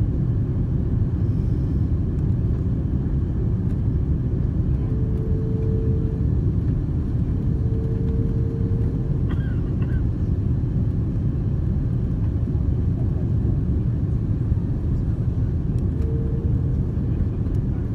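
Airliner cabin noise on the descent into landing: a steady low rumble of jet engines and airflow, heard from a window seat over the wing.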